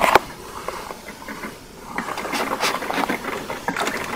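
Krups 985 combination espresso and drip coffee maker brewing: irregular sputtering and gurgling clicks over a hiss, with a knock at the very start.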